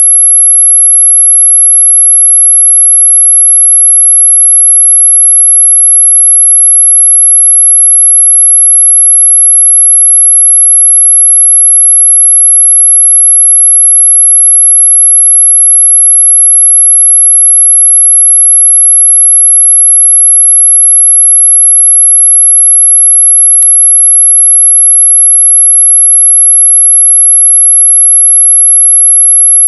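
A single very high-pitched, unwavering whistle tone held continuously at full level: a high-pitch dog whistle sound effect.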